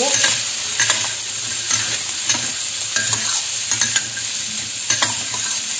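Sliced young gourd sizzling in hot oil in a stainless steel wok while a metal spatula stir-fries it, giving irregular scrapes and clinks against the pan over a steady hiss.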